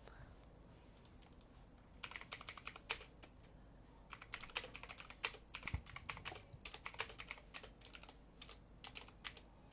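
Typing on a computer keyboard: an irregular run of key clicks starting about two seconds in, with short pauses between flurries.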